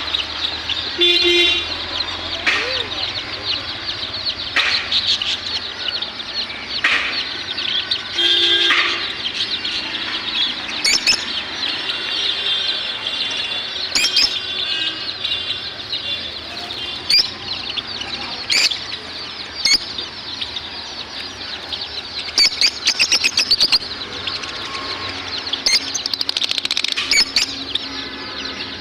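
Cage birds (budgerigars with a lovebird and a Java finch) chattering and chirping continuously, with scattered louder sharp calls and a quick run of rapid sharp notes about three-quarters of the way through.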